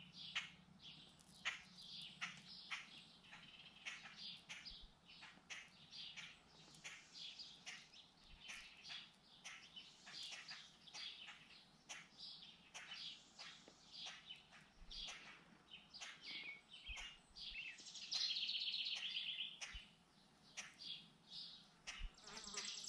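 Blackbirds calling with many short, sharp chirps, agitated by a cat nearby. About eighteen seconds in comes one louder, buzzy call that lasts a second or so.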